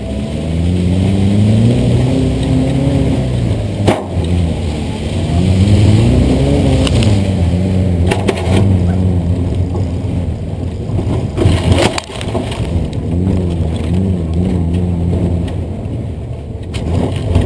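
1964 VW bus engine pulling hard off-road, its pitch rising and falling again and again as it revs over the terrain. Sharp clunks from the bus bouncing over bumps come about four seconds in, around eight and twelve seconds, and near the end.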